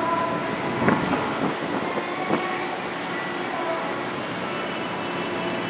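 Steady hum of the ferry Tachibana-maru's engines and shipboard machinery, heard from the open deck over a rush of wind and water, with a couple of brief knocks in the first few seconds.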